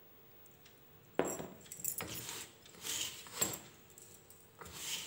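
Hands rubbing and squeezing crumbly semolina dough in a stainless steel bowl: a series of gritty scraping strokes starting about a second in, with light metallic clinks against the bowl.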